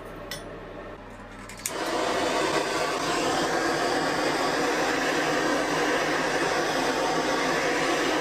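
A few light clicks, then a power tool starts suddenly a little under two seconds in and runs steadily, most likely working the rusty knife blade.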